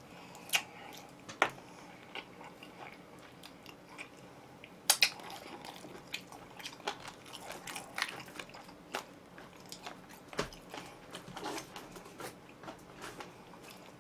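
Close-up biting and chewing of oven-roasted chicken: sharp crunches about half a second and a second and a half in, the loudest near five seconds, then a run of smaller chewing clicks.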